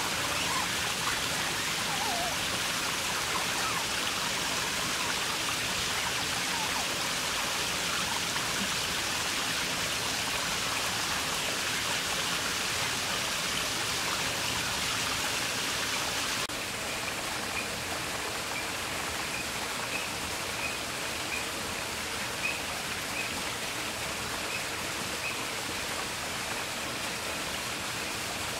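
Steady rushing water, like a stream or small waterfall, dropping slightly in level about sixteen seconds in. Faint short high chirps recur over it in the second half.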